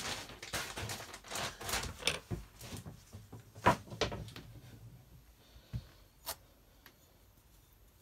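Rustling handling noises with one sharp knock a little before the middle, then a couple of light clicks as it quietens.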